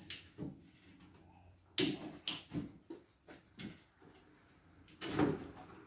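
Knocks and clunks of a radiator top support panel being shifted and pressed into place over a radiator: a run of short knocks about two to four seconds in, then a heavier thump near the end.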